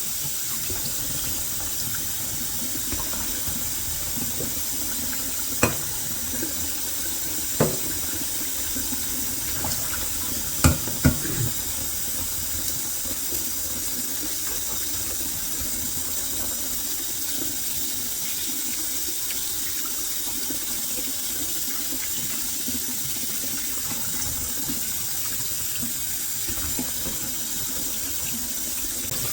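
Kitchen tap running steadily into a sink while hard-boiled eggs are peeled under the stream, with a few short sharp taps about 6, 8 and 11 seconds in.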